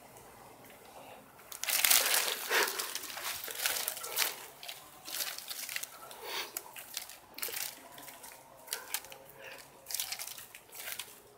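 Cherry branches and leaves rustling and crackling irregularly as a cat clambers through them, starting about two seconds in and loudest at first.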